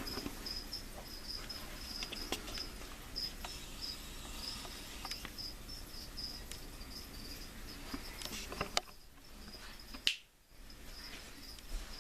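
A cricket chirping steadily in short, high repeated pulses. A few faint clicks and a sharper knock about ten seconds in.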